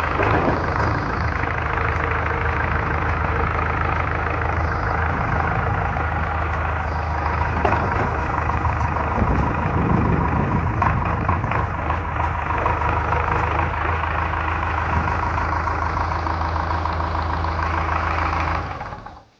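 JCB 3DX Eco Xcellence backhoe loader's 76 hp diesel engine running steadily at a constant speed, then cutting off suddenly near the end.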